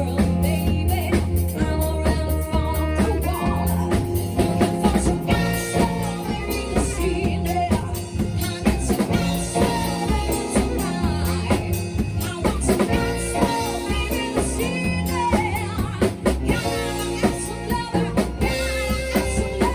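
A band playing a song with a singer: drum kit, bass and guitar under a vocal line.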